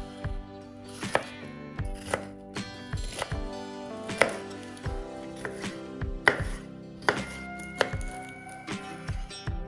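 Chef's knife slicing a red bell pepper on a wooden cutting board: the blade crunches through the flesh and knocks on the board at roughly two strokes a second, unevenly spaced. Soft background music with held notes plays underneath.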